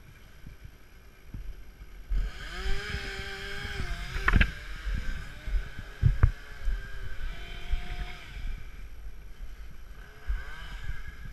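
Chainsaw running and revving: it rises in pitch about two seconds in, holds steady while cutting, and revs up again briefly near the end. Two sharp knocks stand out in the middle.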